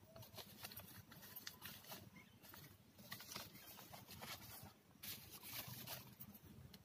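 Faint, irregular crinkling and rustling of a thin plastic bag and cut plastic sheets as handfuls of damp moss are pressed into them.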